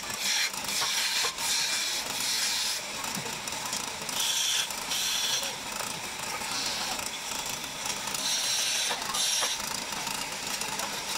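Small wood lathe running, with a hand-held turning chisel cutting into the spinning wooden spindle: a scraping hiss of cutting that comes and goes in short stretches as the tool is pressed in and lifted off, over the steady mechanical running of the lathe.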